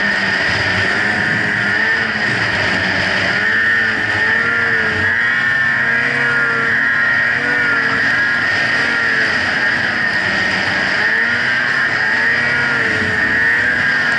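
Snowmobile engine running under load while riding through deep powder, its pitch rising and falling over and over, over a steady rushing noise.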